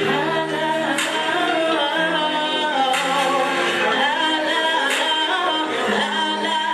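A female singer performing over a backing track, her voice bending between long held notes, with a sharp beat hit about every two seconds.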